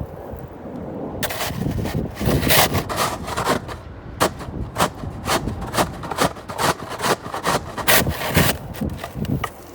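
Snow-clearing work: an irregular run of sharp knocks and scrapes, a few a second, over a rough scraping noise.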